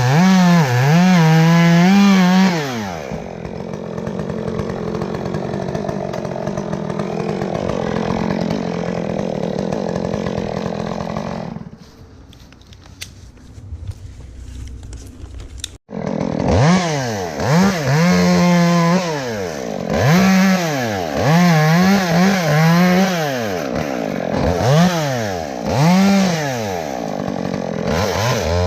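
Gasoline chainsaw revved up and down over and over, its pitch rising and falling about once a second, as in quick cuts through small limbs. Midway it runs more steadily and quieter for several seconds, then the sound breaks off suddenly and the repeated revving starts again.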